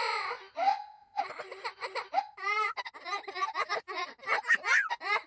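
A high-pitched voice sobbing in quick, choppy gasps, about four to five a second, with one short wailing note about two and a half seconds in: a cartoon-style crying sound effect.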